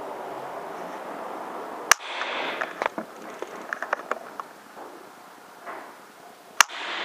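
Two sharp shots from a PCP air rifle, about two seconds in and again near the end, with scattered small ticks and scrapes between them.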